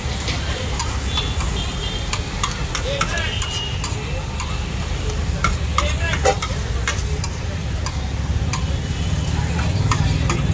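Metal spatula scraping and clicking irregularly against a flat tawa griddle as diced paneer tikka filling sizzles on the hot surface. A steady low rumble runs underneath.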